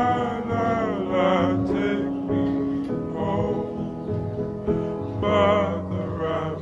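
Background music: a song with voices singing held, gliding notes over instruments.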